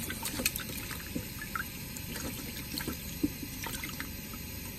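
Freshly caught dace flapping and slapping in a wet plastic bucket, giving irregular wet clicks and small splashes.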